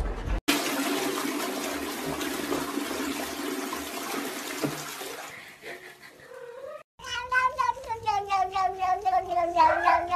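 A toilet flushing, the rush of water fading out after about five seconds. After a short break a tabby cat gives a long, rapidly wavering meow that slowly drops in pitch.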